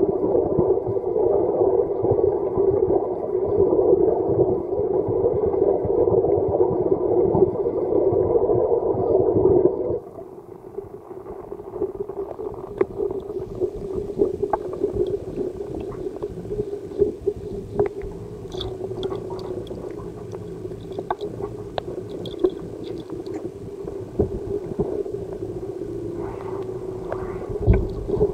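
Muffled underwater noise picked up by a submerged camera: a steady rushing hum that drops sharply about ten seconds in, then a fainter hum with scattered clicks and knocks as a boot moves in the water.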